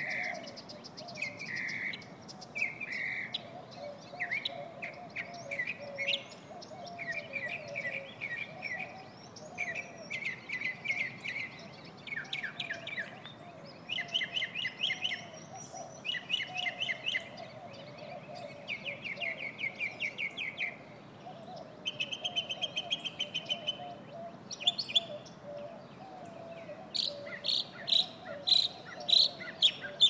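Northern mockingbird singing a continuous run of varied phrases: chirps, trills and buzzy notes, each repeated several times in quick succession before it switches to the next. The loudest, sharpest notes come near the end, and a steady low hum lies beneath the song.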